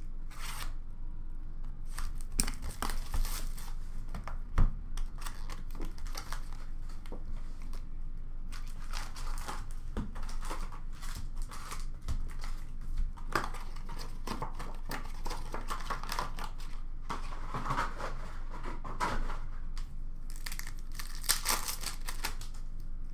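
Upper Deck hockey card pack wrappers being torn open and crinkled by hand, mixed with light taps and knocks of cards and packs being handled, including one sharp knock a few seconds in.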